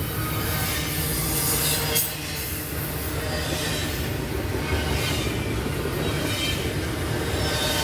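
A train rolling past, with a steady low rumble of wheels on rail and a faint high wheel squeal. A sharp click comes about two seconds in.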